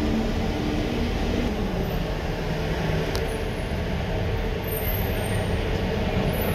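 Steady rumble of slow, heavy road traffic heard from inside a car, cars and buses idling and creeping along, with a low hum over the first two seconds or so.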